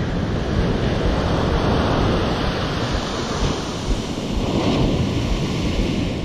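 Ocean surf breaking and washing up a sand beach, a steady rushing wash, with wind buffeting the microphone.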